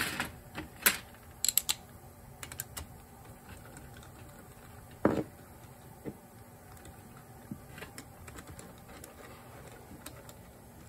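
Scattered clicks and taps of a screwdriver and metal carburetor parts being handled on a metal drip tray, with a louder knock about five seconds in.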